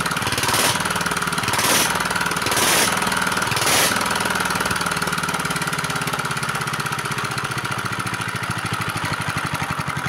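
R180 single-cylinder horizontal diesel engine running at a steady idle with a fast, even pulse. During the first four seconds sharp bursts of noise come about once a second over the engine note, then stop.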